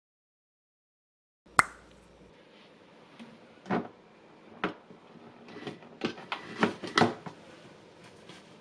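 Handling sounds of a white plastic storage box of disposable face masks: a sharp click about a second and a half in, then a series of soft knocks and rustles as the lid is lifted and a mask is pulled out.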